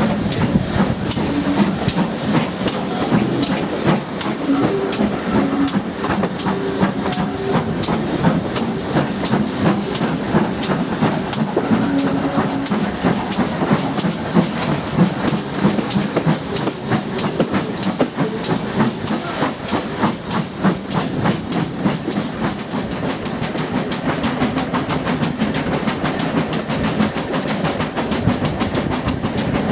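Steam-hauled train heard from an open carriage window: the locomotive working ahead with a continuous run of short knocks, and the coaches' wheels clicking over the rail joints.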